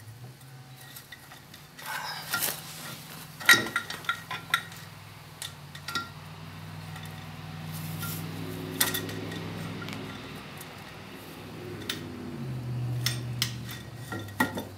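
Scattered metal clinks and knocks as a differential cover is worked into place on the axle housing and its bolts are started, over a steady low hum.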